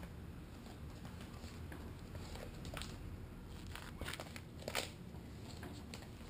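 Italian Greyhound chewing and tugging at a rope toy on a puppy training pad. The pad crinkles and rustles under it, with louder rustles about 3 seconds in and again around 4 to 5 seconds in.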